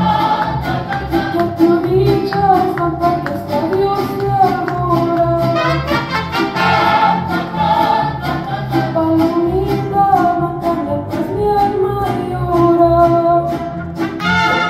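Mariachi band performing: a lead singer over a steady bass rhythm, with violins and trumpets coming in near the end.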